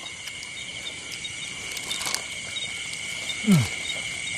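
Steady chorus of night insects, crickets, trilling without a break, with a short falling human vocal sound about three and a half seconds in.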